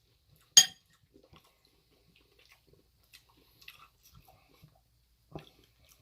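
A utensil clinks sharply against a dish once, then soft chewing and small mouth sounds while eating curry, with another light clink near the end.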